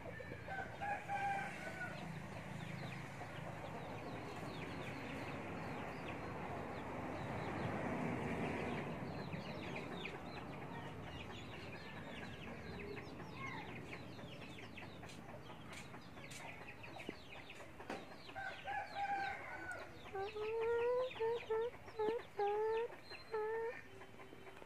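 Red junglefowl rooster calling: a drawn-out call about a second in and another near the end, then a run of about seven short, rising clucks in the last few seconds.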